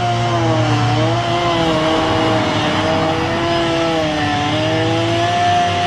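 Chainsaw running at high revs while cutting wood, its pitch sagging under load about a second in and again around four seconds before picking back up.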